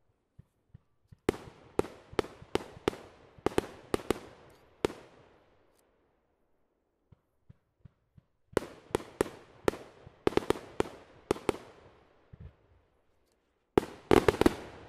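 Fireworks going off: a few faint launch pops, then three volleys of sharp bangs, about three a second, each bang trailing off briefly. The last volley, near the end, is the quickest and densest.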